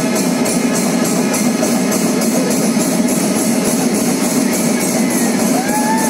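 Kerala temple percussion ensemble playing loud and without a break: chenda drums under a fast, even clash of hand cymbals.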